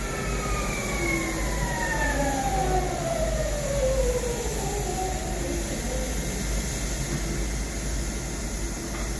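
Škoda electric locomotive's electric drive whining, two tones falling steadily in pitch over about six seconds as it slows, over a steady low hum.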